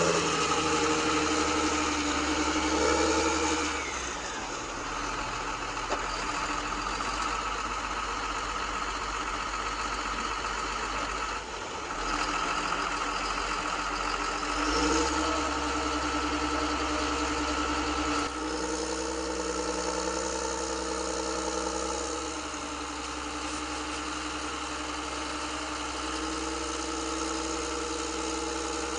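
Engine sound module of an RC-converted Bruder Volvo A60H articulated dump truck playing a simulated diesel engine, mostly idling, with a few changes in engine note as the model drives.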